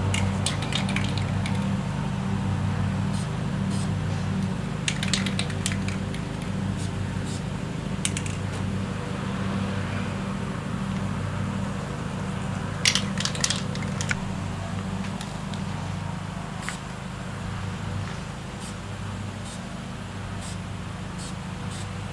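Aerosol can of touch-up paint handled in a few short bursts of metallic clicking, its mixing ball rattling, over a steady low hum.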